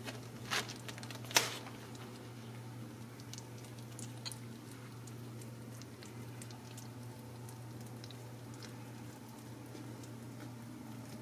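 Quiet room tone: a steady low hum with scattered faint ticks and rustles, and two sharper clicks in the first second and a half.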